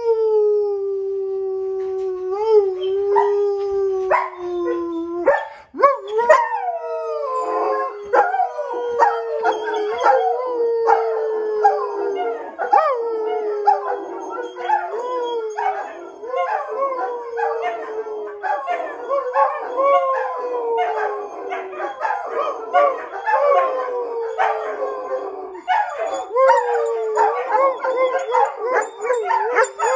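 Several German Shepherds howling together, long falling howls overlapping one another. A single long howl, slowly sinking in pitch, is held for the first five seconds before more howls join in about six seconds in.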